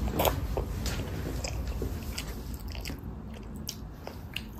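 A toddler chewing a braised chicken drumstick: soft, irregular wet mouth smacks and clicks, a sharper one about a quarter second in, over a low steady hum.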